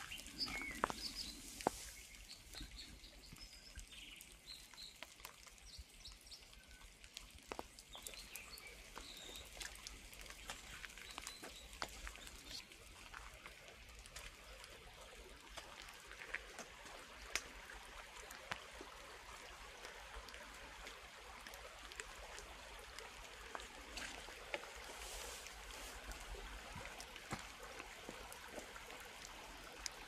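Faint wet-forest ambience: a steady hiss of trickling water with scattered drips and ticks. There are a few faint high bird chirps in the first few seconds.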